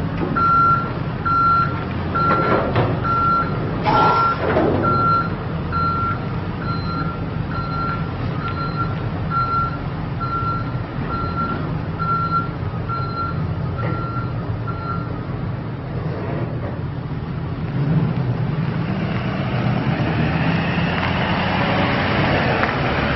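Ford F450's 6.7L Power Stroke turbo-diesel V8 running while the truck reverses, its backup alarm beeping steadily about 1.4 times a second. The beeping stops about fifteen seconds in, and the engine grows louder as the truck drives forward toward the listener.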